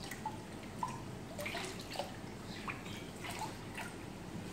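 Irregular drips and small plinking splashes of water into a reef aquarium as the last of a cup of dissolved Cyano Rx treatment is poured in, over a faint steady hiss of aerated water.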